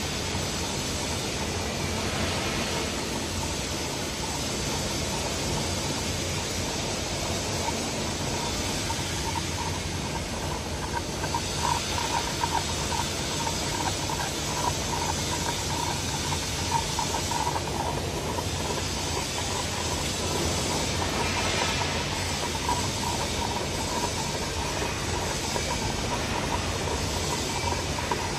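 Electroslag welding running: a steady hiss with a light crackle that grows stronger in the middle.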